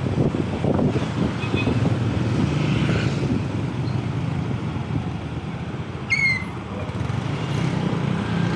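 Motorcycle engine running at riding speed, with wind noise and the traffic around it. About six seconds in comes one short, high-pitched chirp that falls slightly in pitch.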